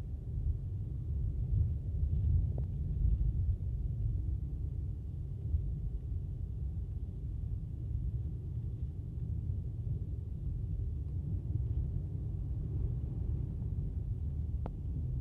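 Low, steady rumble of a car driving on a snow-covered road, heard from inside the cabin, with two faint clicks, one about two and a half seconds in and one near the end.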